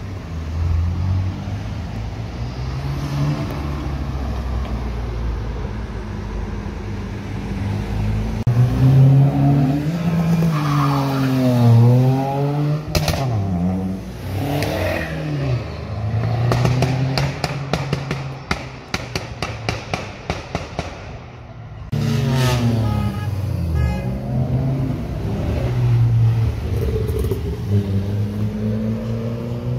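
Cars driving past one after another on a road, engines revving, their pitch sweeping down as each one passes. In the middle comes a rapid run of sharp cracks, about four or five a second, for several seconds, and a motorcycle accelerates past near the end.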